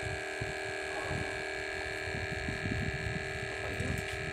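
A steady hum of several fixed pitches, with irregular low rumbling and knocks beneath it.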